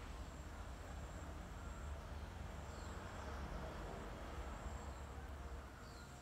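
Faint outdoor garden ambience: a steady low rumble, an insect trilling high-pitched in stretches of a second or two, and a few faint bird chirps.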